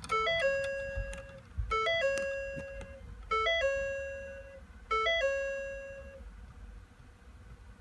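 Ford F-250 Super Duty's instrument-cluster warning chime sounding with the key switched on. It rings four times, about every second and a half: each time a quick up-and-down step then a held tone that fades. The last one ends a little after six seconds.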